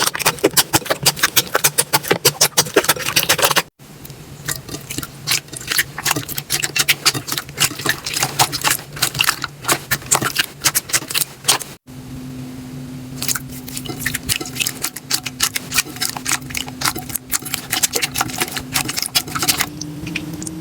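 Slime being squeezed and poked by hand, a rapid run of sticky crackling clicks and pops, with abrupt changes about 4 s and 12 s in as one slime clip gives way to the next.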